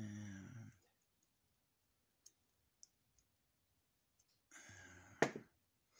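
A man's low drawn-out hum fading out under a second in, then near silence with a few faint ticks as small metal carburetor needles and a pick are handled. Near the end comes a breath and one sharp click.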